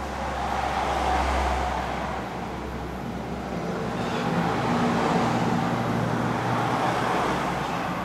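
Road traffic passing: one vehicle swells and fades about a second in, then a second, longer pass builds through the middle and fades near the end, with a low engine hum.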